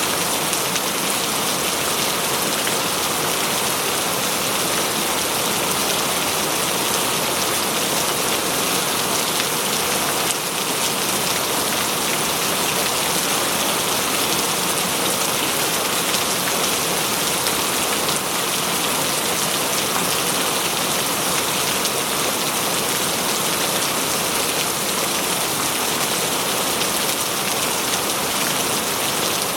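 Heavy rain falling hard and steadily, a loud, dense hiss of drops on a surface.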